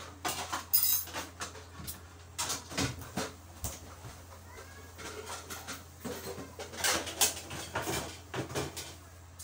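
Scattered clicks, knocks and clatter of things being handled, irregular and loudest about a second in and again near seven seconds, over a steady low hum.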